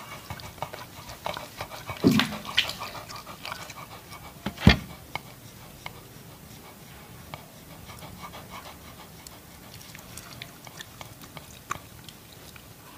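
Dogs panting while a grilled chicken leg is torn apart by hand, with many small crackling, tearing clicks. There is a short low thud about two seconds in and a sharp knock, the loudest sound, a little later.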